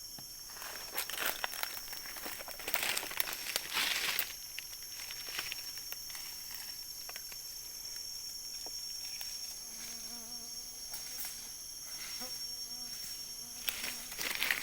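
Forest insects, cicadas or crickets, keeping up a steady high-pitched drone, with short bursts of rustling and crunching from movement through the undergrowth about a second in, around three to four seconds in, and near the end.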